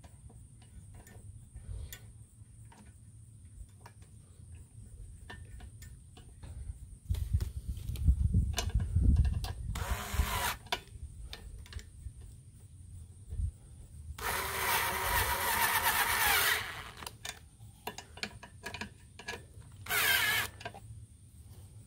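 Cordless drill-driver with a socket bit running in three bursts, driving in the carburetor mounting screws on a Briggs & Stratton lawnmower engine. There is a short burst about ten seconds in, a longer one of about two seconds, then another short one. Before the first burst come handling knocks and a low rumble.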